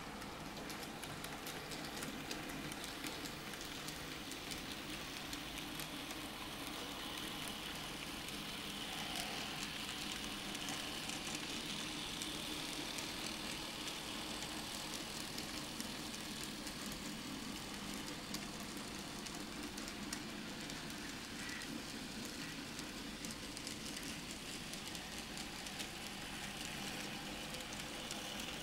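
Z-scale model trains running on the layout's track: a steady whir with a dense crackle of tiny clicks from the small wheels on the rails, a little louder through the middle.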